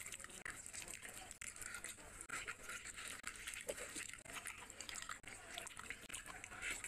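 Grilled chicken being torn and squeezed apart by hand: a steady run of small crackles and clicks as the sauce-coated skin and meat pull apart.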